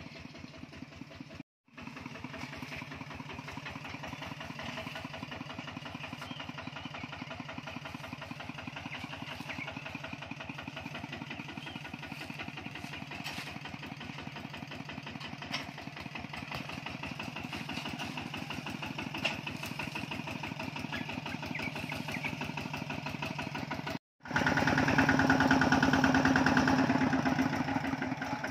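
Kubota two-wheel walking tractor's single-cylinder diesel engine chugging steadily as it pulls a loaded straw trailer. The sound cuts out briefly twice, and it is much louder for the last few seconds.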